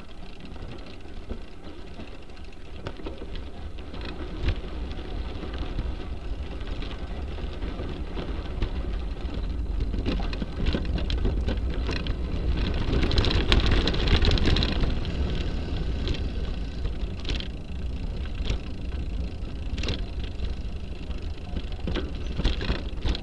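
Bicycle tyres rolling over a gravel and dirt path, heard through the rear-mounted Cycliq bike camera, with wind noise on its microphone and scattered clicks of grit and rattles. It grows loudest a little past halfway.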